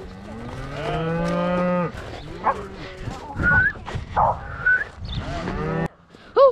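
Cow mooing: one long moo begins about half a second in and lasts over a second. Shorter, quieter calls and a couple of brief high squeals follow, with another moo just before the end.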